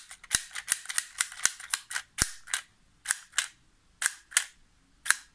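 Mobirates toy morpher, with the Gokai Galleon key inserted, playing electronic gunfire sound effects through its small speaker: a rapid, irregular volley of sharp cracks that thins out toward the end.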